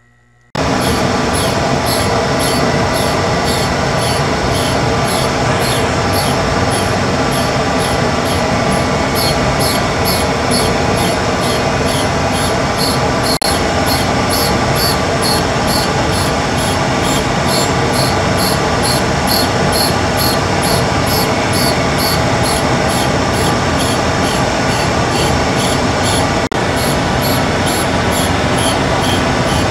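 Tool and cutter grinder running with a 60-grit aluminum oxide wheel, grinding the lead-in clearance of a thread-cutting tap to resharpen it. It is a loud, steady grinding noise that begins about half a second in, with a faint high pulse repeating about twice a second.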